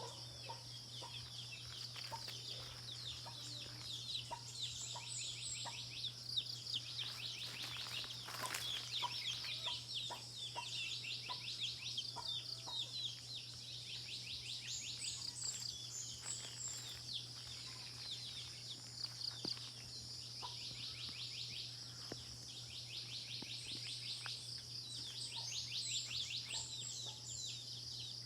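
Chickens clucking with short scattered calls over a dense high-pitched chirping chorus that swells and fades in waves every several seconds, with a steady low hum beneath.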